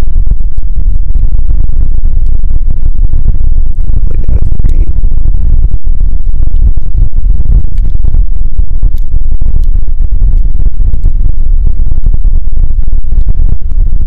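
Wind buffeting the microphone: a loud, steady low rumble, with a few faint ticks above it.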